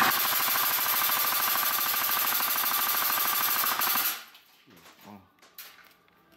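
LCT VZK-MSU airsoft electric gun (AEG) firing one full-auto burst of about four seconds, a rapid, even rattle that stops abruptly. A few faint knocks follow.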